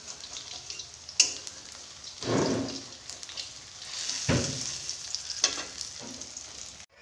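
Pakoras frying in hot oil in a pan, sizzling steadily. There is a sharp knock about a second in, and several louder surges of sizzle and stirring follow.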